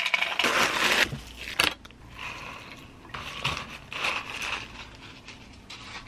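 Dry cereal poured from a plastic bag into a plastic cup: a dense rattle of pieces landing for the first second and a half or so, then softer rattling and crinkling as the cup is handled and lifted.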